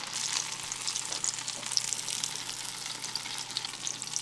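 Pork-rind-breaded mozzarella sticks deep-frying in hot oil in a small pan: a steady sizzle full of fine crackles.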